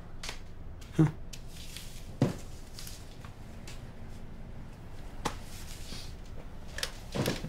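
Quiet room tone broken by a few short sounds. There is a brief low voice sound about a second in, a sharp knock a second later, a softer click past the middle, and a short breathy voice sound near the end.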